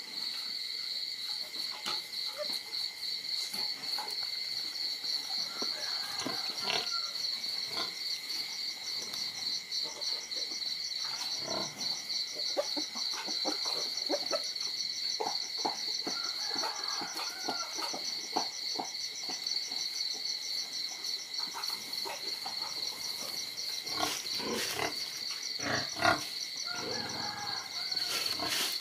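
Night insect chorus: crickets or similar insects trilling steadily on two high pitches. A second, rapidly pulsing insect call joins a few seconds in and fades out near the end, with scattered faint clicks and rustles.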